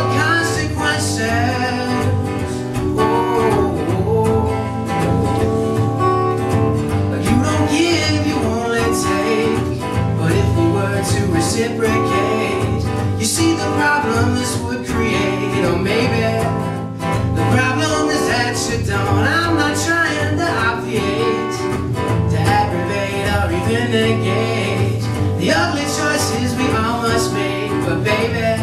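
Acoustic guitar strummed live with a man singing into a microphone.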